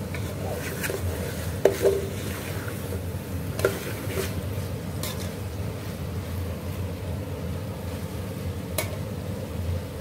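Chickpeas being stirred and fried in masala in a metal pot with a steel spoon: the spoon knocks and scrapes against the pot a few times, loudest about two seconds in and again near four seconds, over a steady low rumble.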